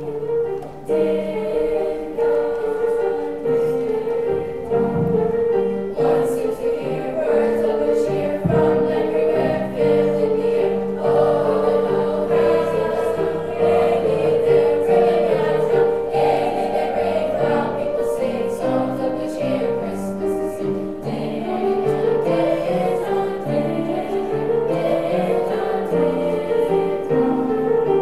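Seventh-grade children's chorus singing together with upright piano accompaniment, the voices holding sustained notes over shifting piano chords.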